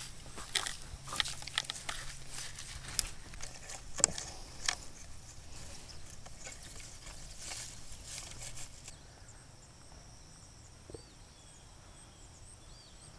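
Pine boughs rustling and crackling as they are pushed and wedged into a branch frame, with sharp snaps of twigs and needles. About nine seconds in this gives way to a faint steady insect buzz and small high chirps.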